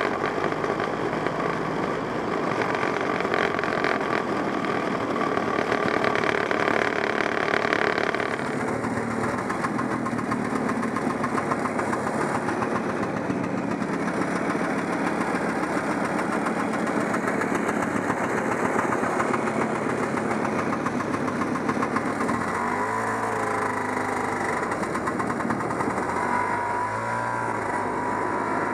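A 1969 Polaris Mustang snowmobile's JLO 372 two-stroke engine runs steadily. Its sound changes abruptly about eight seconds in. Near the end the revs rise and fall several times.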